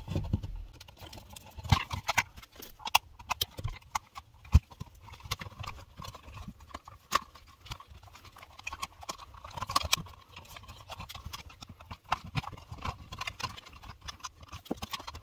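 Gloved hands working a plastic electrical wall box and its cable: irregular clicks, knocks and rustling as a wire nut is twisted on and wires are fed into the box, with one sharp knock about four and a half seconds in.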